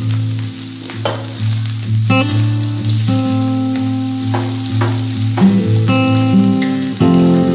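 Background instrumental music with sustained notes changing every second or so, over a spatula stirring cooked rice and vegetables in a non-stick frying pan. There are several short scrapes against the pan and a faint steady sizzle.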